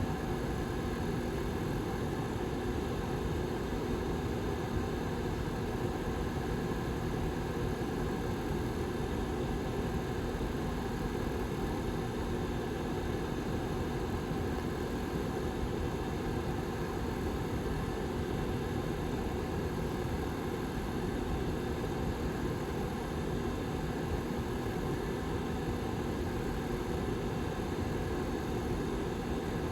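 The back fan of a Lasko 755320 tower heater running: a steady rush of air with a low, even hum that does not change.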